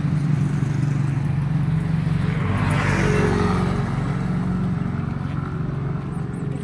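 Road traffic: a motor vehicle passes close by, its noise swelling to a peak about three seconds in and then fading, over a steady low rumble of traffic.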